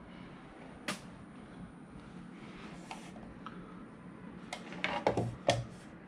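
Scattered clicks and knocks of objects being handled: one sharp click about a second in and a quick cluster of louder knocks near the end, over a steady low hum.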